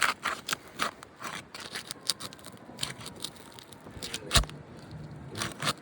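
Sealed asphalt roof shingles being lifted to break their adhesive seal strips: a run of irregular crackling snaps and scrapes, with one sharper knock about four seconds in.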